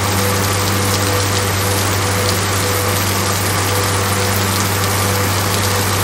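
Background music holding a steady low chord, over an even rushing hiss of a waterfall pouring into a pool.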